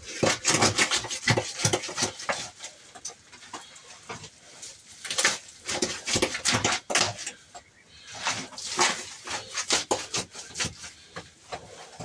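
Metal shovel blade scraping across a hard floor and scooping loose earth, in repeated gritty strokes with the soil spilling and scattering.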